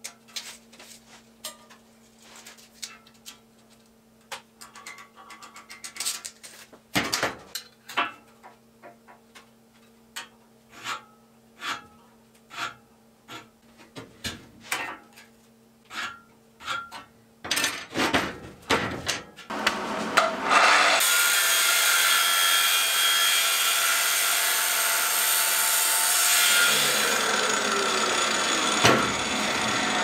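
Light clicks and knocks of a tape measure and steel square being handled against a rusty square steel tube, then, about two-thirds of the way in, an angle grinder starts cutting through the steel tube with a loud, steady grinding hiss that carries on to the end.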